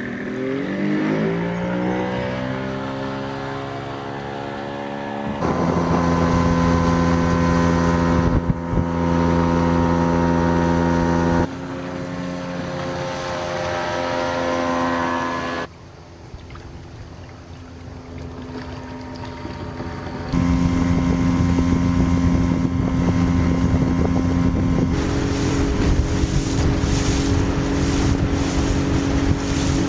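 Outboard motor on a small aluminium boat, its pitch rising as it speeds up and pulls away, then running steadily at speed. The sound cuts abruptly several times from one steady engine pitch to another.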